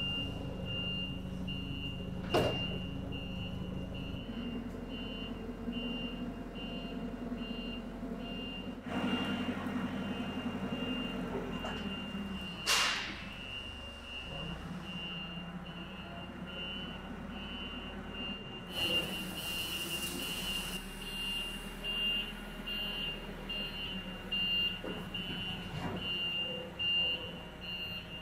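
Forklift reversing alarm beeping steadily over the forklift's running engine as it pushes the tank backwards. Two sharp metallic clanks, one about two seconds in and one near the middle.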